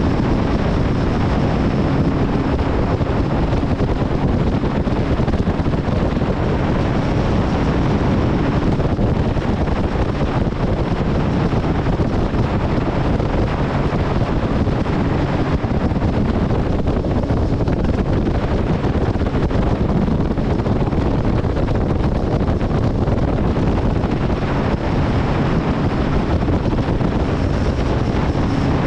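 Steady wind on the microphone over the drone of a Mercury outboard motor running a bass boat at cruising speed.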